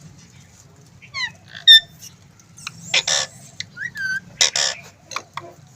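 Green ringneck parrot (rose-ringed parakeet) calling: a few quick whistled chirps about a second in, then two louder, noisy squawks around the middle and later, with a short whistle between them.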